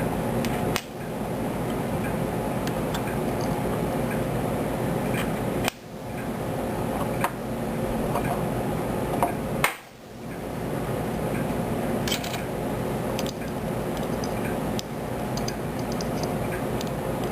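Small metal parts of an airsoft trigger assembly clicking and clinking as they are handled, with a few sharp clicks over a steady background hum.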